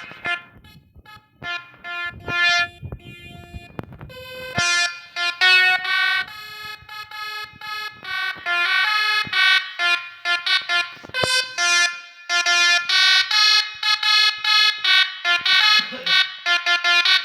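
Sampled DAV D3 basuri telolet horn, a multi-tone bus air horn, playing a tune in short, rapid notes. The notes are sparse over a low rumble at first, then become a dense, continuous run from about four and a half seconds in.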